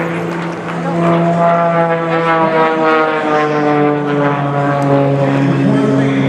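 An aircraft passing at an air show: a loud steady engine tone with overtones that slides gradually lower in pitch as the plane goes by.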